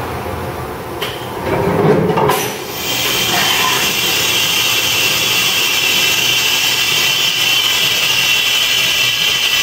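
Fadal 3016 vertical machining center running under power: a couple of knocks and some whirring in the first two or three seconds, then a steady, loud hissing whir as the spindle head travels.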